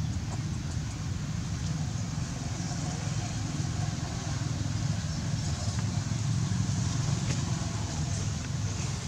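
A steady low rumble of outdoor background noise, with a few faint clicks.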